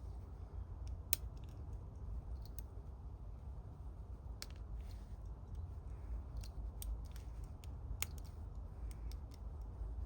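Lock picks working inside an ABUS 83/45 padlock's cylinder: irregular small metallic clicks and faint ticks of the pick and tension wrench against the pins. A few sharper clicks stand out about a second in, midway and near the end, over a steady low rumble.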